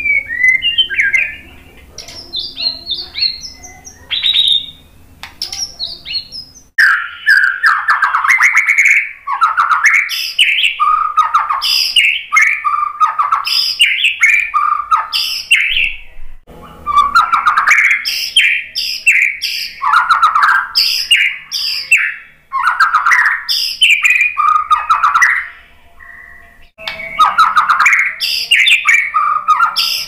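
White-rumped shama singing a loud, varied song of rich whistled phrases. The song is sparse and softer for the first few seconds, then runs on almost without a break from about seven seconds in, pausing briefly twice.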